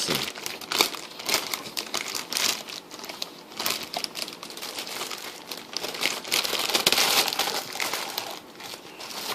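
Plastic packaging crinkling and rustling as the sealed wrapping is opened and pulled off a new bench power supply, with irregular crackling that is busiest about seven seconds in.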